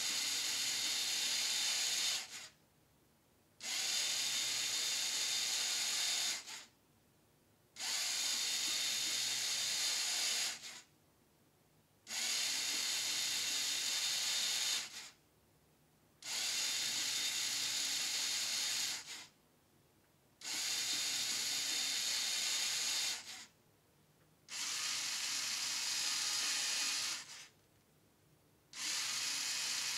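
LEGO NXT motor running the Technic gear train and follower cams of a mechanical number display. It sounds as a steady whirr with plastic rattling, in runs of about three seconds with short quiet pauses between, each run stepping the display on to the next number.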